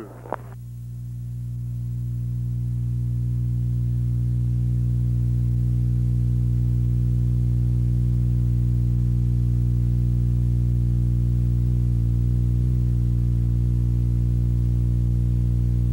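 Steady low electrical hum with a buzzy row of overtones. It grows louder over the first few seconds, then holds unchanged.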